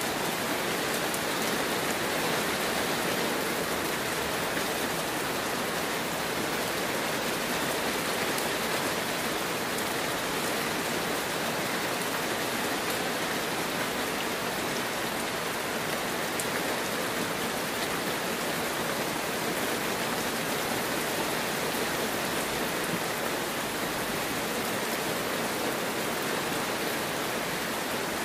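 Heavy rain falling steadily, an even hiss with a few faint drop ticks.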